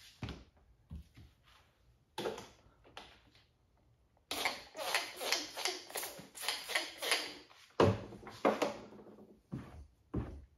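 Hand trigger spray bottle spritzing liquid onto paint protection film on a car panel. It gives a few single squirts, then a quick run of about three squirts a second for some three seconds.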